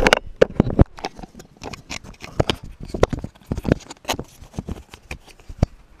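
Handling noise from a GoPro Hero 3 White Edition in its sealed waterproof housing: an irregular string of clicks, knocks and scrapes on the housing, heard through the camera's own microphone.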